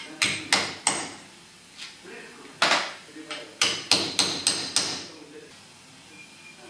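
Hammer strikes, about ten sharp blows in two runs: four in the first second, one more near the middle, then five quick ones a little later.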